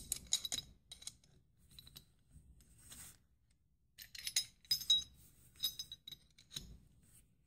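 Metal open-end wrench clinking and ticking against the yoke nut and body of a piston scuba regulator first stage as it is fitted, turned and refitted to tighten the nut. It comes in several short bursts of clinks with pauses between.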